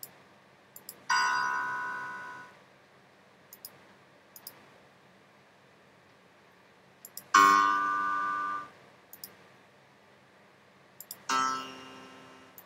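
Three single piano notes from an online piano app's on-screen keyboard, each struck once and dying away over about a second and a half: about a second in, about seven seconds in, and near the end. Pairs of sharp computer-mouse clicks sound between the notes.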